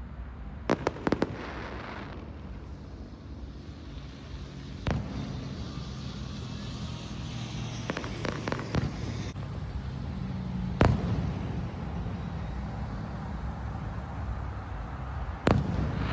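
Fireworks going off: a quick cluster of sharp cracks about a second in, then single bangs and crackling scattered through, the loudest about two-thirds of the way in.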